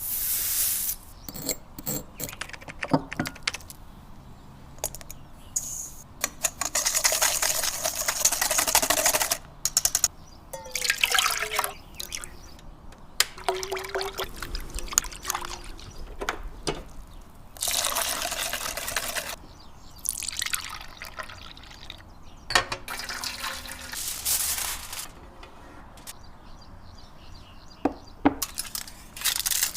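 Kitchen preparation sounds for crème brûlée: liquid being poured and stirred in separate bursts of a few seconds, with sharp clinks and taps of utensils against bowls between them.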